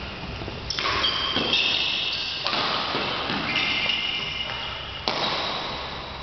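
Badminton play echoing in a large sports hall: sudden knocks with high squeaky tones trailing after them, about a second in and again about five seconds in.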